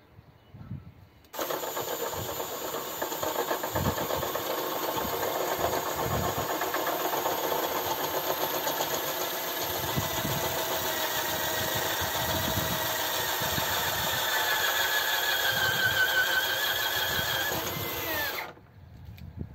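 Corded electric drill running a long wood auger bit through a disc of resinous fatwood, a steady motor whine with cutting noise. The motor pitch sags a little under load late on, then the drill stops shortly before the end.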